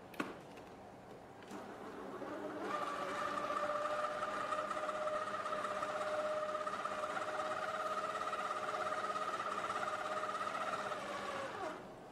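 CHEFTRONIC SM986 stand mixer running at low speed, beating egg whites into cake batter in a stainless steel bowl: a steady motor whine that comes up about two seconds in and winds down just before the end. A sharp click comes just after the start.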